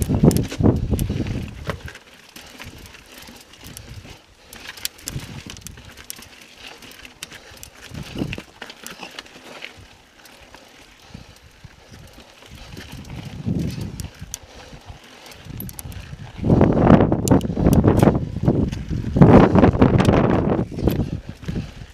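Mountain bike ridden over rough sandstone ledges: knobby tyres and bike rattling and thumping over rock, with scattered ticks and clicks. The louder rumbles come in the first couple of seconds and again over the last five or so.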